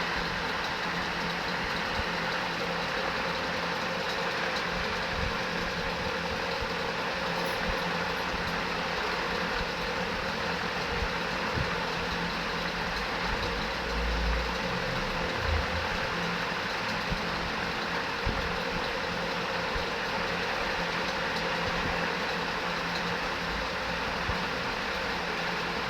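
A vehicle engine running steadily, with a few low thumps about halfway through.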